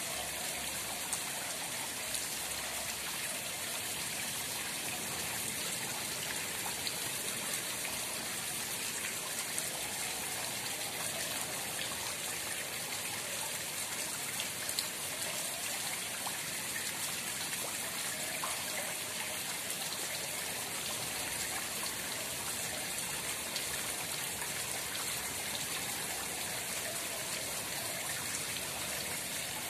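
Steady running, trickling water with a few faint drip-like ticks.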